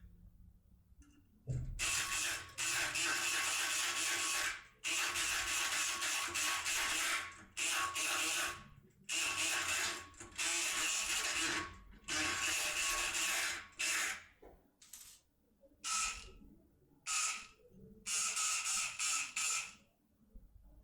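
Multipick Kronos electric pick gun buzzing as its pick needle vibrates in the keyway of an Apex lock cylinder. It is triggered in about a dozen bursts, the first ones a few seconds long and the later ones shorter, with brief pauses between them.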